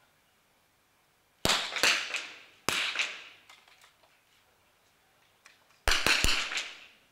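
Smallbore .22 target rifles firing in the prone position: about six single shots from different shooting points. Three come spread over the first few seconds, then three in quick succession near the end, each echoing in the hall.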